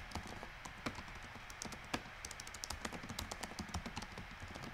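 Typing on a laptop keyboard: a quick, irregular run of light key clicks.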